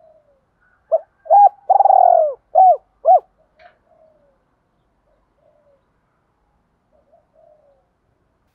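Spotted dove cooing close by: one loud phrase of five notes about a second in, the middle note the longest, followed by a few faint, short coos.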